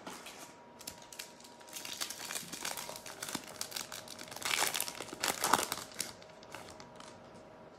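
Foil trading-card pack wrapper being torn open and crinkled by hand. There is a dense run of crackling that is loudest near the middle and dies away toward the end.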